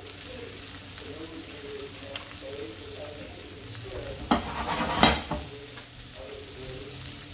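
Onion and celery sizzling in a frying pan as they are stirred with a spatula, with two louder knocks of the spatula against the pan about four and five seconds in.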